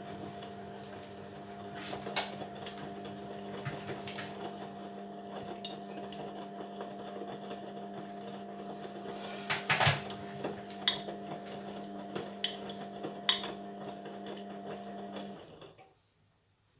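Indesit washing machine on a sport wash, its drum motor humming steadily while the load turns with scattered clinks and knocks, the loudest cluster near the middle. The motor stops near the end, leaving near silence as the drum comes to rest between turns.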